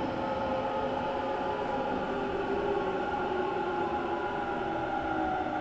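Inside the passenger cabin of a Hanshin 1000 series electric train as it slows for a station stop: steady running noise with the several-tone whine of its inverter-driven traction motors.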